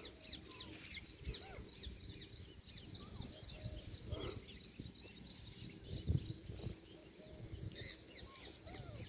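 Many small birds chirping at once, a dense run of quick high chirps that overlap. A low rumble runs underneath, and a single thump about six seconds in is the loudest sound.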